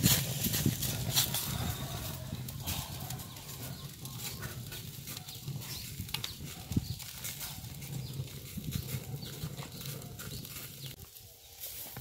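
Charcoal fire in a clay jar oven crackling under a roasting duck, with sparse sharp clicks that are most frequent in the first second or two, over a low steady hum.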